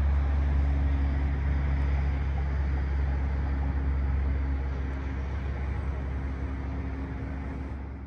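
Steady low outdoor city rumble of distant traffic and wind, with a faint hum, heard from high above the bay. It fades out near the end.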